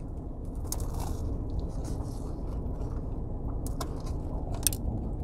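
Biting into and chewing a toasted, buttered lobster roll, with a few short crunches from the bread over a steady low rumble.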